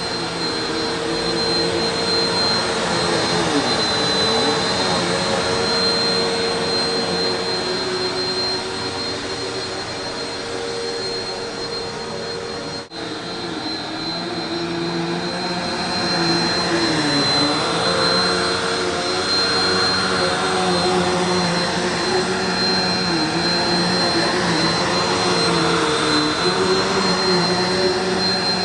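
Eureka PowerSpeed Pro Swivel Plus (NEU192A) bagless upright vacuum running, a steady motor whine with a high tone over the rush of air. Its pitch dips and recovers a few times as the load changes, and there is a brief break about halfway through.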